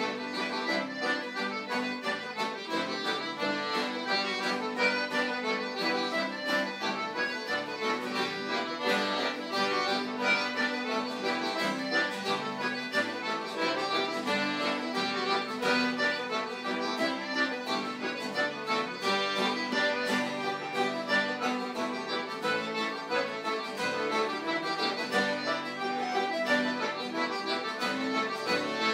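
Live instrumental session music: a traditional-style tune played on, with a steady beat and no singing.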